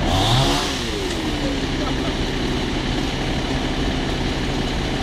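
Fire engine's motor running steadily at a constant speed to drive the aerial ladder. Near the start, a brief engine rev rises and then falls away.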